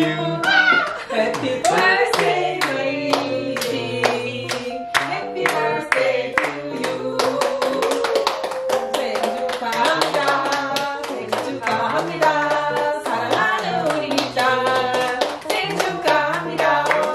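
A small group singing a celebration song together while clapping along in a steady beat.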